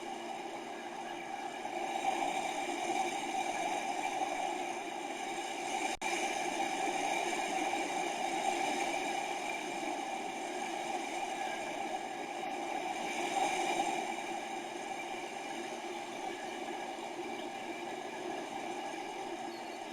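Steady rushing outdoor noise picked up by a bird-feeder security camera's microphone, swelling a little twice, with a brief dropout about six seconds in.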